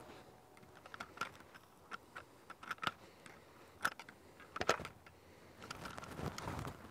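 Scattered light metallic clicks and scrapes of pliers working in the chamber of a Glock 17 pistol, clearing a stoppage caused by a piece of melted polymer drawn into the chamber.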